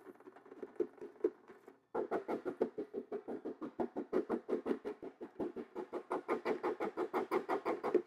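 Rapid tapping on the clear plastic dust bin of a Lupe Pure cordless vacuum to knock fine dust out of it, about five or six hollow knocks a second. A few scattered taps come first, then a steady run starts about two seconds in.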